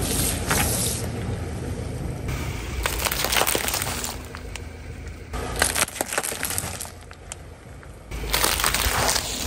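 Car tyre rolling over plastic bags and cups of water beads, crushing them with runs of sharp crackles and pops over the car's low rumble. The sound comes in several short bursts a few seconds apart.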